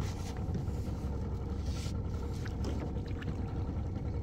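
A boat motor running steadily: an even low rumble, with a few faint knocks about halfway through.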